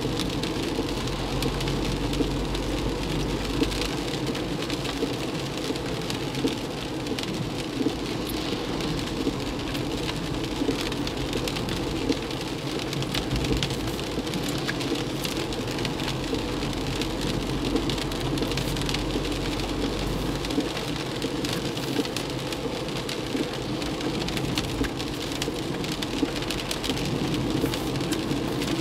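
Heavy rain pattering on a moving car's roof and windshield, heard from inside the cabin, over a steady hiss of tyres on the flooded road and a low engine hum.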